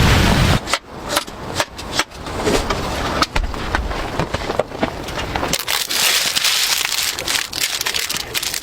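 Campfire crackling with irregular sharp pops. A steady hiss joins in about five and a half seconds in. It opens with a moment of low wind rumble that cuts off abruptly.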